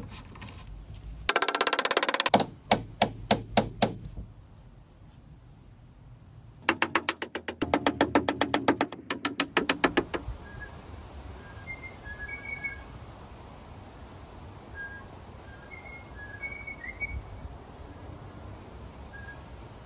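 Two quick runs of hammer blows driving small nails into a plywood panel, the first with a ringing tone over it; then, for the second half, birds chirping in short repeated calls over a quiet outdoor background.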